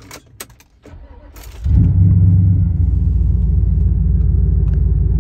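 Cammed LS4 V8 of a Chevrolet Impala SS starting up about a second and a half in and settling into a loud, choppy idle through its 3-inch exhaust, which needs repair. A few light clicks come before it.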